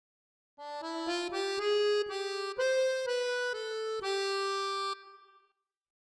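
Short accordion melody as the channel's logo jingle: about a dozen notes, climbing in pitch and then stepping back down, stopping a little before five seconds with a brief fade.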